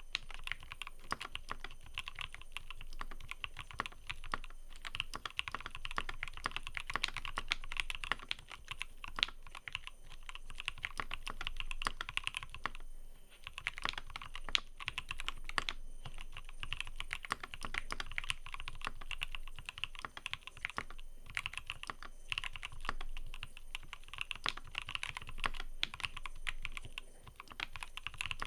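Fast, continuous typing on a mechanical keyboard: a dense run of crisp key clicks with short pauses about halfway through and again near the end.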